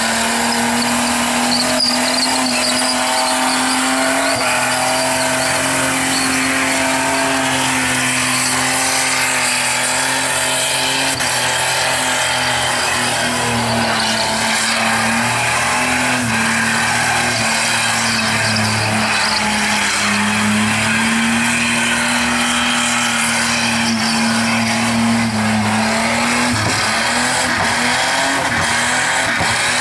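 Holden VR Commodore's 3.8-litre Buick V6 held at high revs during a burnout, with the rear tyres spinning and squealing. The engine pitch stays steady, with a few brief dips midway and a longer drop a little before the end.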